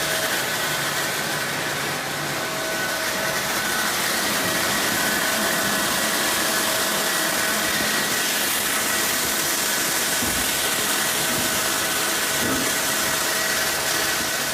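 Urschel Comitrol Model 3640A size-reduction machine running under load, coarse-cutting cooked garlic and anchovies into a paste. It makes a steady machine whir and hiss with a few thin, steady tones over it.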